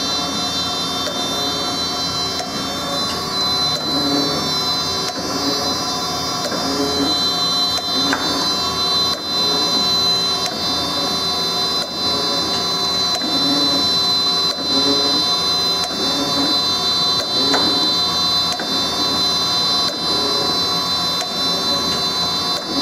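Acer AGS-1224AHD surface grinder running: a steady hum with a high whine, and a low surge that comes back every second or two. The spindle sounds healthy, nice and quiet.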